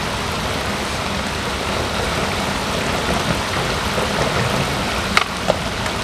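Steady rushing of a shallow running stream. Near the end, two sharp clacks of a skateboard striking the top of a concrete wall as it is popped and flipped.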